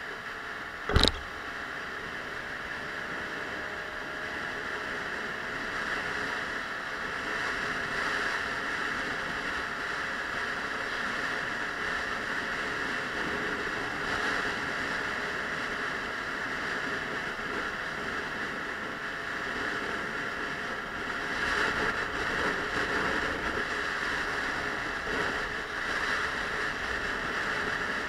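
Suzuki Let's 4 moped scooter under way in traffic: steady wind rush on the microphone over the hum of its small single-cylinder engine, whose pitch drifts gently with the throttle. A single sharp knock sounds about a second in.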